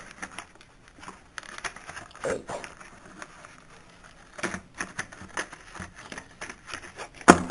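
Plastic blister pack and cardboard backing card of a toy die-cast car being pried open by hand: irregular crackles and clicks, with one sharp snap near the end.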